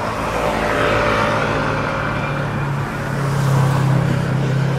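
A motor engine running with a steady low hum, growing louder about three seconds in.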